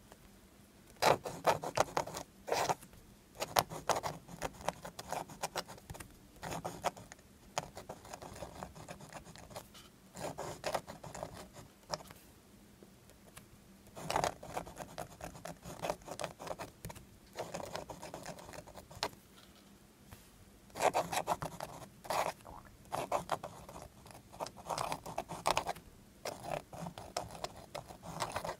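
Pilot Falcon 14K gold soft extra-fine fountain pen nib scratching across paper as it writes, in irregular bursts of short strokes with brief pauses between words.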